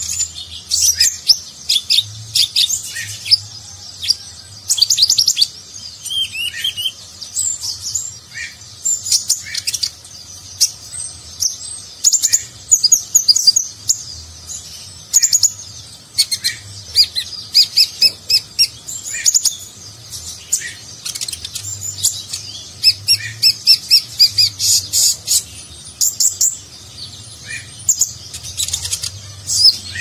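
Caged male Van Hasselt's sunbird (kolibri ninja) singing vigorously: rapid, high twittering chirps and trills in repeated loud bursts, with short lower notes in between.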